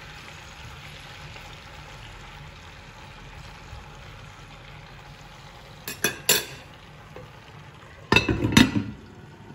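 Potatoes frying in hot oil in a pan, a steady sizzle. About six seconds in come two sharp clinks of a utensil against the pan, and near the end a louder burst of clattering as the pan and its contents are stirred.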